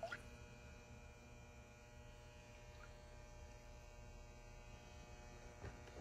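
Near silence: a faint, steady electrical hum of room tone.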